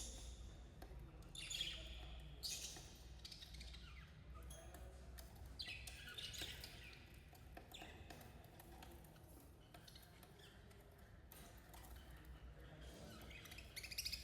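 Budgerigars chirping and chattering in scattered bursts of quick high chirps, quieter for a few seconds in the middle.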